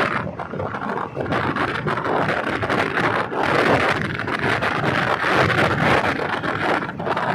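Diesel railcar train running along the line: a steady, loud rattle and rumble of the wheels on the rails, with wind.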